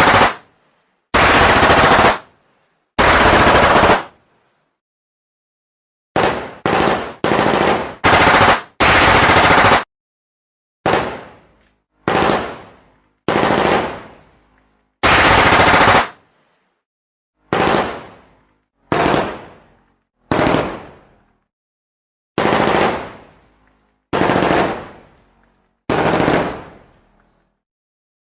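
Gunfire sound effects: a series of separate blasts, the first few about a second long, then a quick run of four short bursts, then shots that each ring off over about half a second, with dead silence between them.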